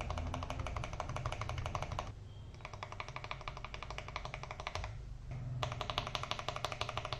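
Mechanical keyboard being typed on rapidly for a keycap sound test on the regular alphanumeric keys: a dense run of key clacks, with two brief lulls about two and five seconds in.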